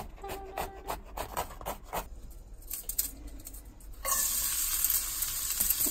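A run of quick knife taps on a cutting board, then about four seconds in chopped carrots hit hot oil in a wok and set off a loud, steady sizzle.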